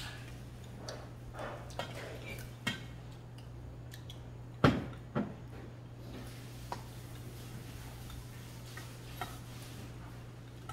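Metal utensils clinking and scraping in a stainless steel bowl as broth is mixed into mulhoe, scattered light clicks with a louder pair of knocks about four and a half seconds in, over a steady low hum.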